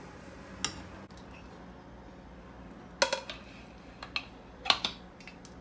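A few sharp clatters and clinks of kitchen dishes and a round metal cake tray being handled, with a cluster of the loudest knocks about three seconds in and a few more near the end.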